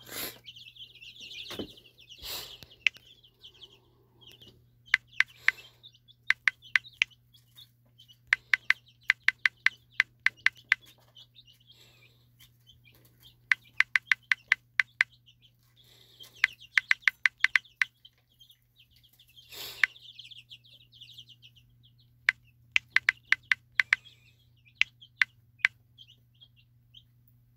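Touchscreen phone keyboard tapping as a search query is typed: quick runs of short, sharp clicks, several groups of five to eight taps a second apart, with a few louder knocks in between.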